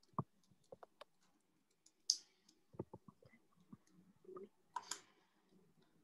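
Faint scattered clicks and small handling noises, with two short breathy hisses, one about two seconds in and one near five seconds.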